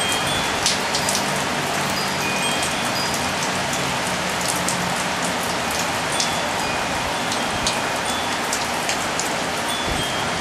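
Steady rain shower falling on a balcony, with many small drip ticks. Wind chimes give a few short, faint high rings now and then.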